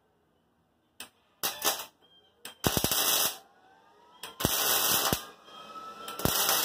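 Welding arc crackling in four short bursts, each under a second and led by a quick crack, as a car's replacement quarter panel is welded onto the body in short runs.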